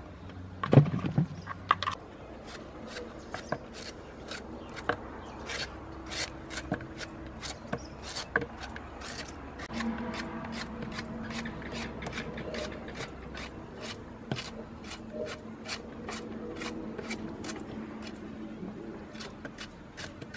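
Knife peeling a white root vegetable: short scraping strokes about twice a second. There is one louder knock about a second in.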